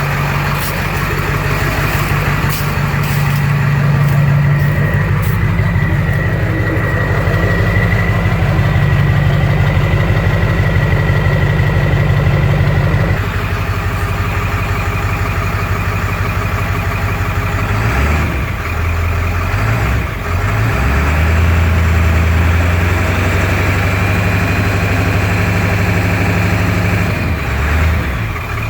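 Swamps Gen 3 230cc engine on 100% injectors idling after start, with an idle that is rough while the fuel tune is being dialled in. Its note changes about halfway through and wavers unevenly for a few seconds after that before settling again.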